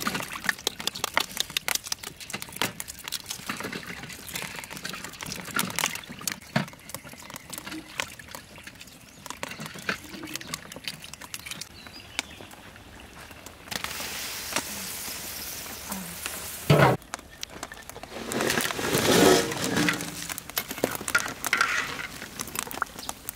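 Cooking sounds in a row: many small cracks and splashes as boiled eggs are shelled in a basin of water, then a steady hiss of a large wok of braised pork simmering once its metal lid is lifted, broken by a loud knock, followed by more loud clattering and bubbling.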